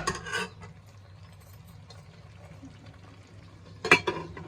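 A metal spoon clattering against the karahi: a few quick knocks at the start and a louder cluster of clacks about four seconds in, with a faint steady simmer between.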